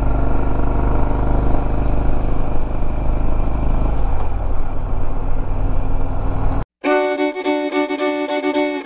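Harley-Davidson Ultra Limited's V-twin engine running steadily while riding. A little under seven seconds in the sound cuts out abruptly, and fiddle music starts.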